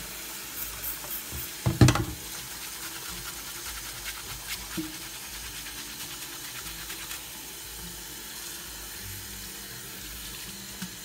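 Kitchen tap running steadily into a stainless steel sink while dark clothing is rinsed and scrubbed by hand in the stream. A single loud knock about two seconds in.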